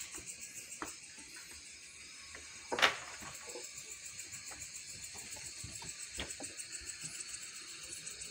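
A steady, finely pulsing chorus of night insects, with one sharp wooden clatter about three seconds in as sawn planks are set down, and a few lighter knocks of timber later on.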